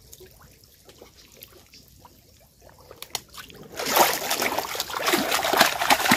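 Shallow water sloshing and splashing as it is scooped with a mesh food-cover net, starting about four seconds in after a quiet stretch with a few small ticks.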